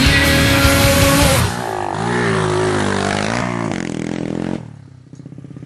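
Rock music cuts off about a second and a half in, giving way to a 125 cc pit bike engine revving up and down several times. Near the end the engine drops back to a quieter, lumpy idle.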